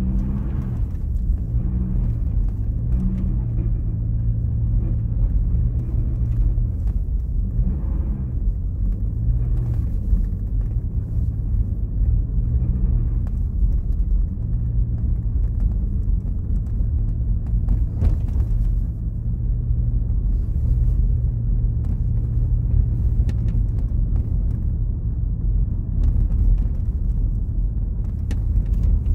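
Car engine and road noise heard from inside the cabin while driving slowly over an icy street: a steady low hum whose pitch shifts a little now and then as the engine speed changes.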